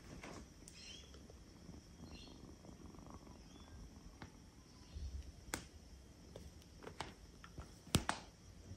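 Kitten purring faintly while being petted, with a few sharp clicks and rustles as it climbs over cloth trousers; the loudest click comes near the end.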